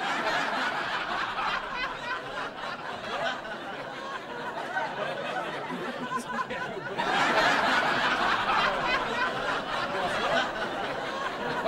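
Sustained laughter that grows louder about seven seconds in.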